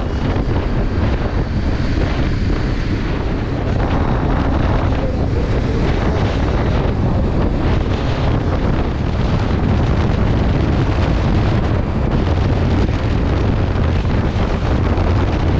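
Wind buffeting the microphone of a motorcycle rider at highway speed: a loud, steady rush.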